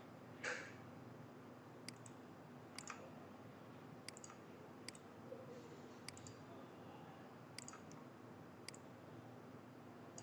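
Computer mouse clicks, sparse and faint, about one a second, as points are placed with a drawing tool, over a low steady room hum. A brief soft rush of noise about half a second in.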